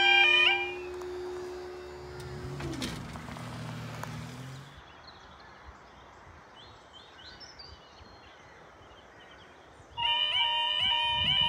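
Automatic half barrier level crossing alarm warbling slowly, a steady high tone with repeating rising notes, cutting off just after the start. A passing train's tone drops in pitch about three seconds in, followed by quiet with a few faint bird chirps. About ten seconds in the warbling alarm starts again as the amber light comes on.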